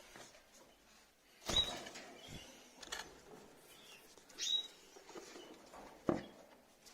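Rosy-faced lovebirds giving two short, high squeaky calls about three seconds apart, with soft scratching between them and a sharp knock near the end.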